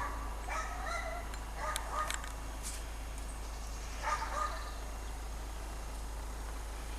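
Short pitched animal calls, honk-like: a run of them in the first two seconds and another pair about four seconds in.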